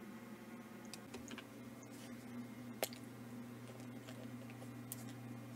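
A faint, steady low electrical hum with a few small, sharp clicks and taps of light handling at a workbench. The clearest click falls a little before the middle.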